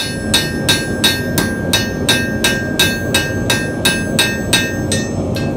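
Hand hammer striking metal on an anvil in an even rhythm, about three blows a second, each blow ringing. The blows stop about five seconds in. Beneath them runs a steady low rushing noise.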